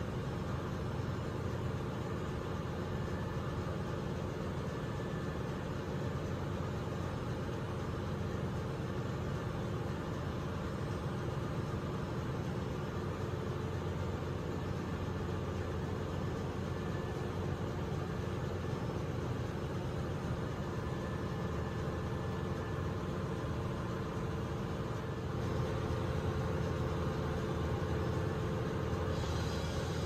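Steady drone of running ship's machinery, a continuous low hum with a few held tones above it, growing slightly louder near the end.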